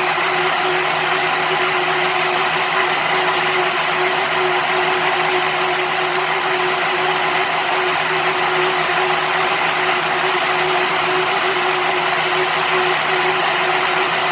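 Maize silage baler machine running steadily: an even, loud mechanical noise with a constant hum under it.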